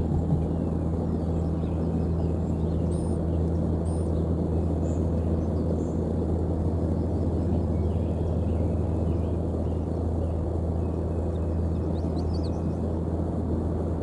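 A steady low hum with several even, low tones, with a few faint high bird chirps over it.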